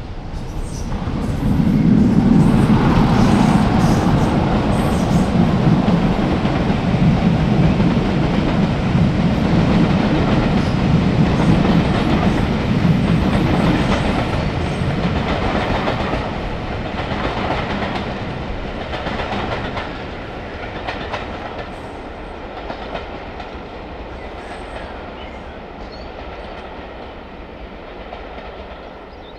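Diesel train passing close by, engine running and wheels clicking over the rail joints. It grows loud within about two seconds, stays loud for about twelve seconds, then fades away.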